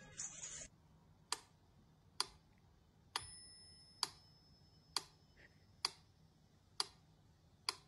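Faint, steady clock-like ticking: a sharp tick a little under every second, about eight in all, with a thin high tone held for about a second near the middle.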